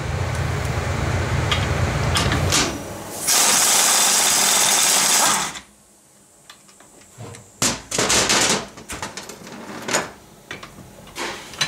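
Pneumatic impact wrench hammering on a CVT variator pulley nut to loosen it, a steady rattle for about two and a half seconds, then a higher, hissing run for about two seconds. After that, a few light metal clinks and taps as the pulley and puller are handled.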